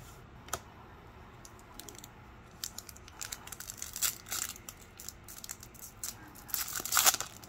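Foil wrapper of a 2002 Pacific Adrenaline hockey card pack being torn open by hand: crinkling and tearing that starts about two and a half seconds in and is loudest near the end.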